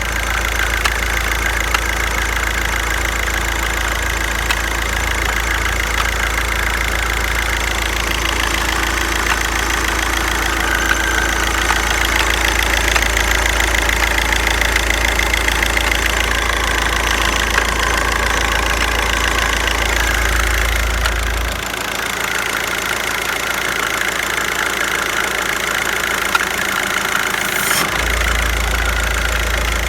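Volkswagen-group 2.0 TDI four-cylinder turbodiesel engine idling steadily with a knock, which the owner presents as a fault.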